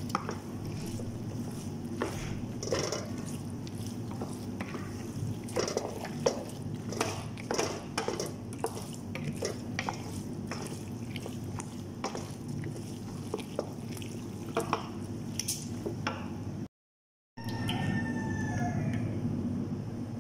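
A spoon stirring cooked macaroni in a creamy sauce: a long run of soft wet squelches and clicks over a steady low hum. After a sudden short gap near the end, a white liquid is poured from a jug into a bowl.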